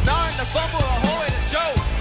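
Live pop music: a singer's voice over a backing track with strong bass, the melody moving in repeated rising-and-falling phrases.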